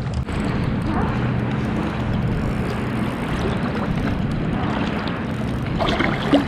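A steady, low engine drone with a short, sharper sound near the end.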